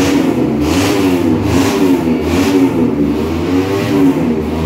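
Race motorcycle engine revved over and over, its pitch rising and falling about every three-quarters of a second as the throttle is blipped.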